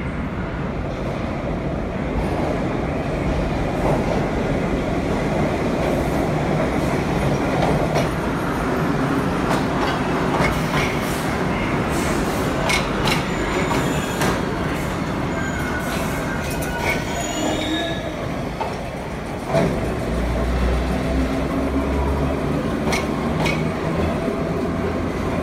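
New York City subway train running past on a track near the platform, a continuous rumble of wheels on rail. High wheel squeal comes and goes through the middle, with scattered sharp clicks over the rail joints.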